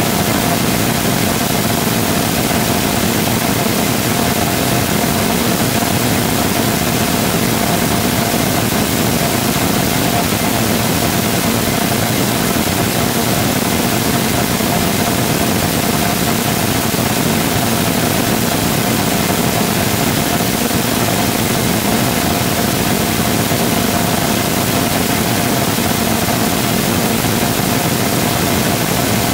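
A full-scale 3D-printed Rotating Detonation Rocket Engine combustor firing steadily: a loud, constant rush of noise with a steady mid-pitched tone held within it.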